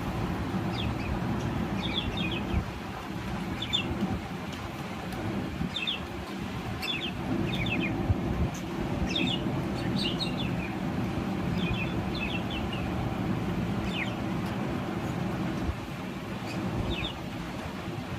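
Budgerigars chirping in short clusters of quick, high chirps every second or so, over a steady low rumble.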